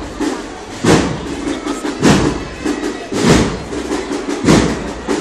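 Drum struck in a slow, steady processional beat: four loud strokes about 1.2 seconds apart.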